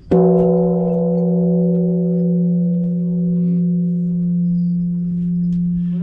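A Japanese temple bell (bonshō) is struck once just after the start. It rings on with a strong low hum and several higher tones that fade only slowly.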